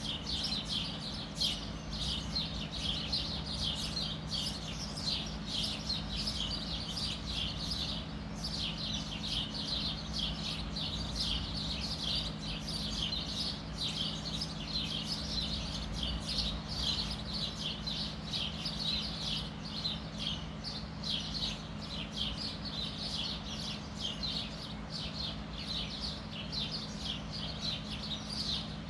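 Birds chirping continuously, many short high chirps overlapping with no break, over a steady low hum.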